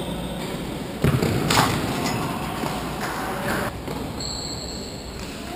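Football being kicked and thudding on the floor, echoing in a large sports hall: a heavy thud about a second in, a sharp crack just after, and more scuffling impacts around three seconds. A short high squeak follows about four seconds in.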